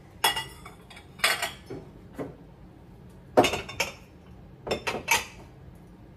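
Dishes clinking and clattering as bowls and mugs are set onto stacks on a kitchen cabinet shelf, in several short bursts of knocks.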